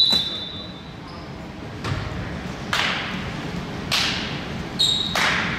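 Indoor basketball game: a few sharp thuds about a second apart as a basketball bounces on the gym floor, ringing in the hall. A short high tone sounds at the start and again near the end.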